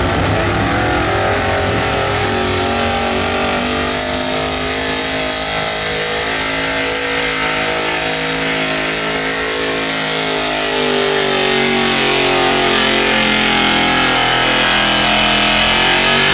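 Pickup truck's engine at full throttle and high revs, dragging a truck-pull sled down the dirt track. The engine note holds steady throughout and grows a little louder in the last few seconds as the truck comes past.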